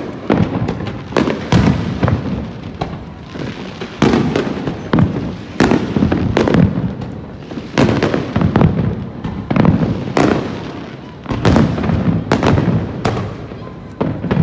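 Aerial fireworks shells bursting in quick succession, about one to two booms a second, each followed by a trailing echo.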